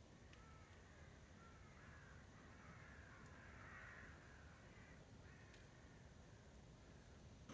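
Faint bird calls: a run of short calls, loudest about halfway through, over near silence.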